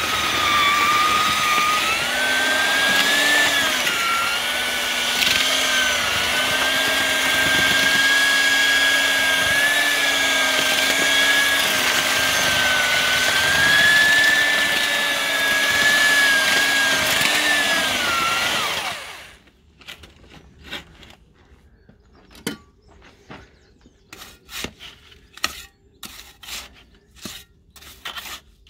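Handheld electric paddle mixer with a twin whisk running, its motor whining steadily with slight dips in pitch as it churns slaking quicklime and sand in a galvanised metal dustbin. About two-thirds of the way through the motor winds down and stops, followed by short scrapes and clinks of a trowel against the metal bin.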